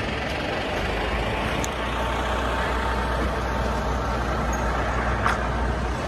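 A car driving at low speed on a town street: a steady low engine and road rumble with tyre noise, and one short click about five seconds in.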